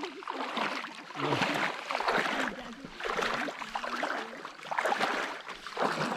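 Water splashing and rushing around a kayak on a shallow river, in uneven surges about once a second.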